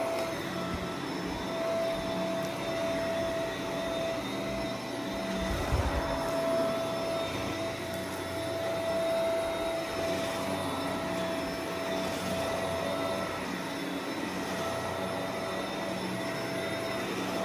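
Upright vacuum cleaner running on carpet, a steady motor whine with air rush. A short low thump comes about six seconds in.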